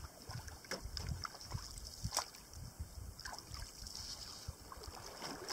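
Canoe paddling on calm water, faint: the paddle dipping and dripping, with a few light ticks and knocks.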